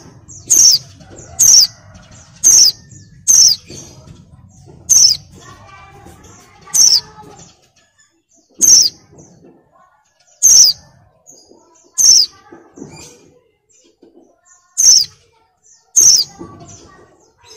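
Female white-eye (pleci) in breeding condition giving short, sharp, high calls that slide downward, repeated about a dozen times at uneven gaps of one to two seconds; a call used to lure male white-eyes into song.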